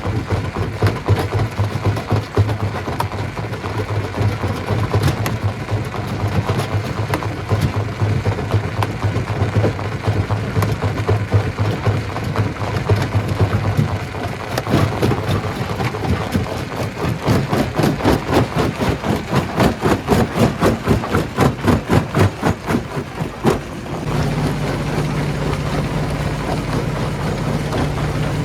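Stone crusher machine running: a steady low machine hum under continuous clattering of rock being crushed. Midway a fast, regular pounding sets in for several seconds, and near the end the clatter gives way to a steadier, higher hum.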